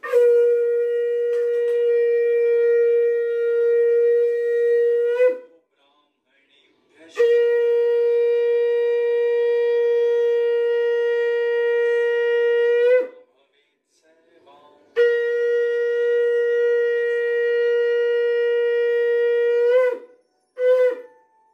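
Hindu ritual conch shell (shankh) blown in three long blasts of about five to six seconds each, then one short blast near the end. Each blast holds one steady note and wavers briefly as it breaks off.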